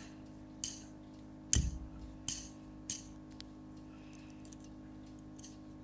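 Plastic clicks and taps from a Lego fidget spinner being handled and flicked: about five scattered clicks, the loudest a knock with a dull thump about a second and a half in, over a faint steady hum.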